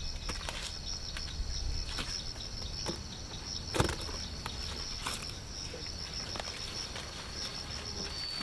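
Insects chirring in a steady high pulsing trill, with scattered light clicks and rustles and a sharper snap about four seconds in.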